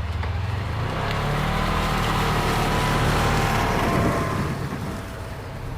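Large farm machine's engine running at work, growing louder as it passes close by midway and then fading, with a whine above the low rumble.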